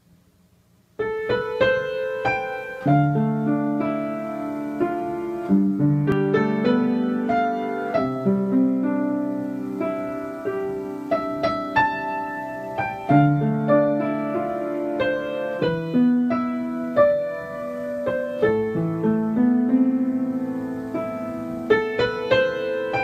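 Background piano music, a slow run of struck notes and chords, starting about a second in.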